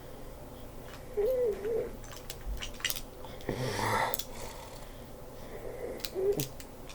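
Scattered light clicks of small plastic Lego pieces being handled, with a short hummed "hmm" about a second in and again near the end, and a breathy exhale midway.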